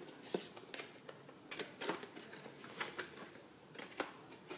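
Cardboard box and plastic packaging being handled as a box is unpacked: irregular rustles, scrapes and light clicks, several times a second at most.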